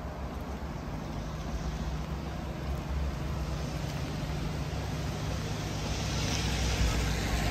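Street traffic: a steady engine hum sets in about a second in, and tyre hiss on a wet road swells toward the end as a vehicle comes closer.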